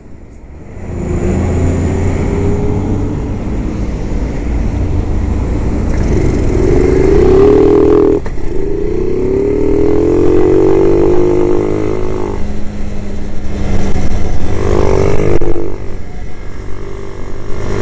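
Jincheng M50 monkey bike engine pulling away from a stop, rising in pitch as it accelerates, with a sudden break about eight seconds in where it changes gear before climbing again. Wind noise runs under it on the helmet microphone.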